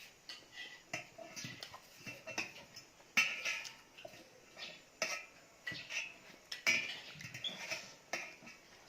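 Eating sounds: chewing and smacking with cutlery clicking against a plate, in irregular short clicks and smacks.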